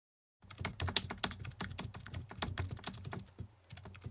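Typing on a computer keyboard: rapid, irregular key clicks that start about half a second in, with a brief pause near the end.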